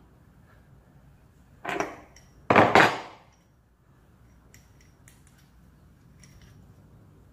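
Metal parts of an old sink tap being handled on a table: a loud clatter and knock about two seconds in, followed by a few light metallic clinks as the threaded valve spindle is handled.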